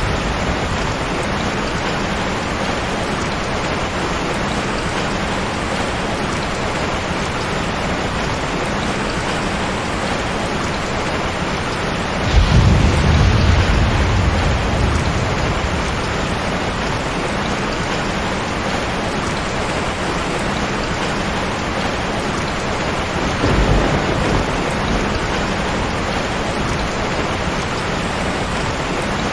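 Heavy rain falling steadily, with a clap of thunder about twelve seconds in that rumbles on for a few seconds, and a weaker rumble of thunder near the end.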